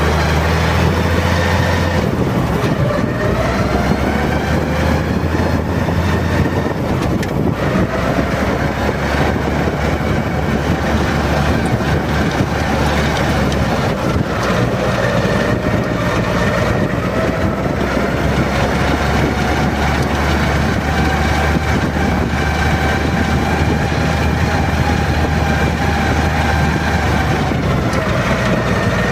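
Valmet tractor's diesel engine running steadily under load as it pulls a land plane across the field, with a high whine over the engine that drifts slowly up and down in pitch.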